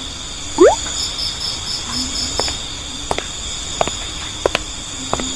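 Night ambience of crickets chirping steadily. About half a second in comes a quick rising whoop, the loudest sound. It is followed by a string of light clicks, roughly one every 0.7 seconds.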